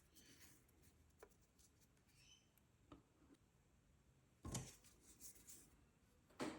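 Quiet handling of small 3D-printed plastic headphone parts: faint clicks and rubbing, with two louder knocks, one a little past halfway and one near the end.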